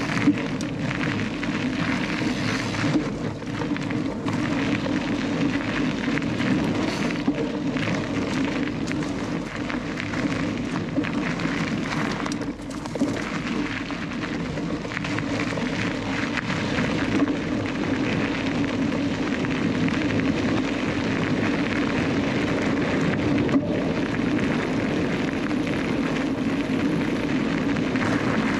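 Onboard sound of a Canyon Lux Trail mountain bike ridden at speed: steady tyre rumble and crackle over dirt and gravel, with wind noise on the microphone and frequent sharp rattles and knocks from the chain and frame over bumps.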